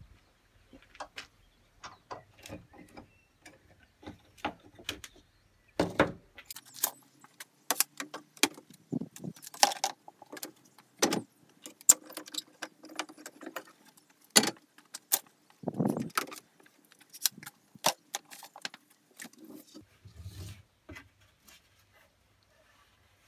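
Metal clamps being loosened and taken off a wooden frame in a clamping jig: an irregular run of clicks, clinks and rattles of metal clamp parts, with a few heavier knocks as pieces are moved.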